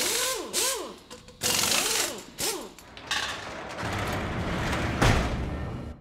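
Mechanical sound effects: clicks and short squeals that rise and fall in pitch, then a roller shutter door running up with a steady noise that ends in a heavy clunk about five seconds in.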